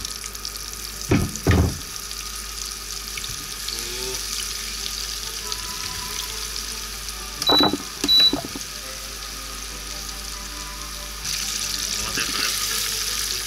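Battered whole banana deep-frying in hot oil: a steady sizzling and bubbling that grows a little louder near the end. Two pairs of brief, louder knocks come near the start and about halfway through.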